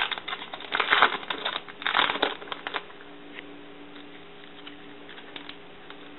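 Hockey trading cards being flipped through by hand, a run of quick papery slides and snaps over the first three seconds or so, then only a few small clicks over a faint steady hum.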